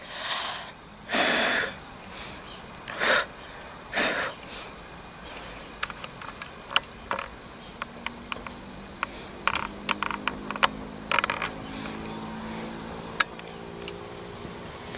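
A Southern Class 377 Electrostar electric train approaching: from about halfway its drive whine of several steady low tones builds up, with scattered faint clicks. Early on there are a few loud short puffs of noise close to the microphone.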